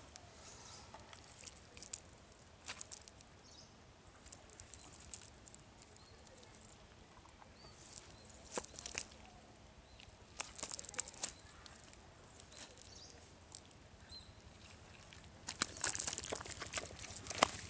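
Short bursts of splashing and pattering water with sharp crackles, in three clusters a few seconds apart over a quiet outdoor background, from a cast net and its catch being handled in shallow water.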